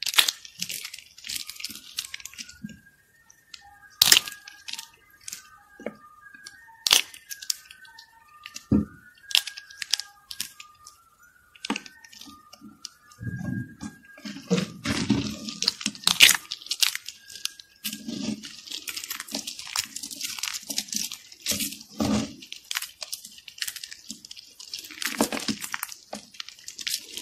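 Thin flakes of soap crunching and crackling as hands squeeze them and rake through the pile: scattered sharp cracks in the first half, then dense, continuous crackling from about halfway on.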